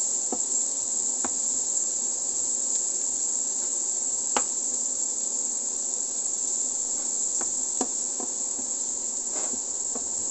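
Diced onion sizzling in melted butter in a frying pan, a steady high hiss at the sauté stage. A wooden spoon clacks against the pan now and then, most sharply about four seconds in.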